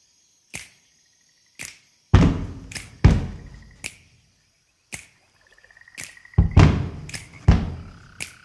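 Intro of a recorded song: sparse sharp clicks about once a second, several heavy booming hits that die away, and short steady beeping tones, with no singing yet.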